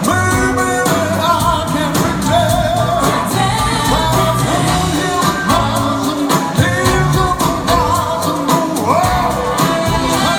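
A live band playing a pop ballad, with a singer's held notes wavering in vibrato over bass and a regular drum beat.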